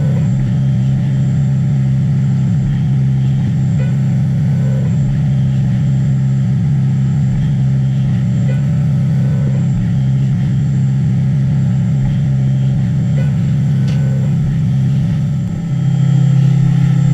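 Haas five-axis CNC mill running a detail cut with an endmill: a steady low machine hum. Near the end it dips briefly, then settles into a smoother, slightly louder hum.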